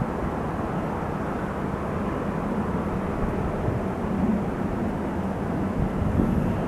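Jet airliner engines heard as a steady, even rumble, with an occasional brief low knock.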